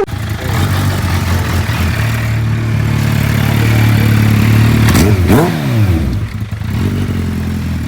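Kawasaki sport bike's inline-four engine running steadily, then revved up and back down twice in quick succession about five seconds in, before dropping back to idle.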